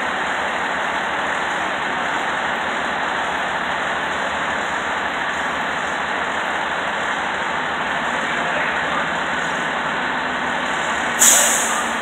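Steady, even running noise of an FDNY tower ladder fire truck standing in the street, mixed with city traffic. A single sudden, sharp loud sound cuts in near the end and dies away within about a second.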